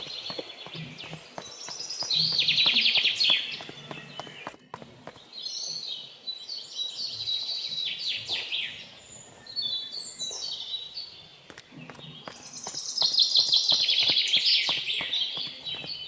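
Birds chirping and singing in quick trills, with louder swells about two seconds in and again near the end.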